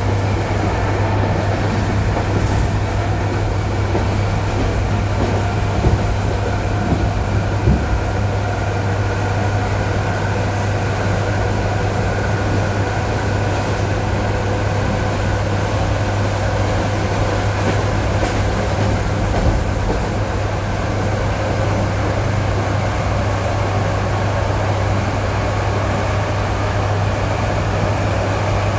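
Inside an ED9E electric multiple-unit train, running with a steady low hum and rumble while its traction motor whine rises slowly as it picks up speed. A few short wheel knocks sound around six to eight seconds in.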